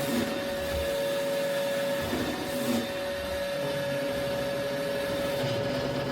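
Roomba robot vacuum running: a steady motor hum with a held whine.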